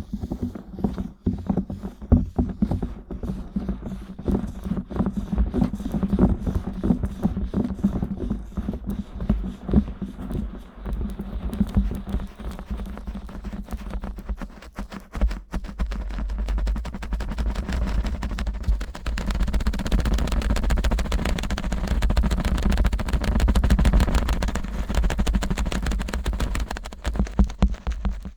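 Fingers rubbing, pressing and scratching the silicone ears of a 3Dio binaural microphone, close up. Quick crackling scratch strokes with low muffled presses come first, then denser, steadier rubbing about halfway through.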